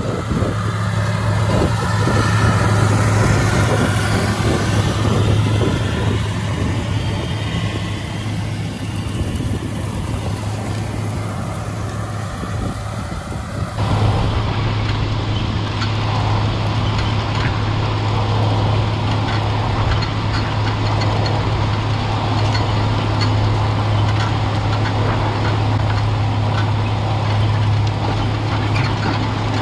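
White 4-270 four-wheel-drive tractor's diesel engine running steadily under load while pulling a strip-till bar, a constant low drone. Wind rushes over the microphone in the first half. The sound changes abruptly about halfway through, becoming a fuller, steadier engine note.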